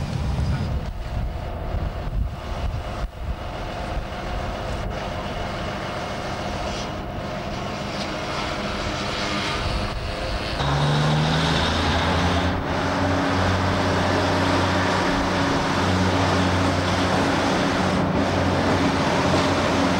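A Dutch DE II diesel multiple unit on the move: first the even running rumble heard from inside the railcar, then, after a sudden cut about halfway through, the same DMU heard from close by the track, its diesel engine droning steadily and louder as it crosses a bridge.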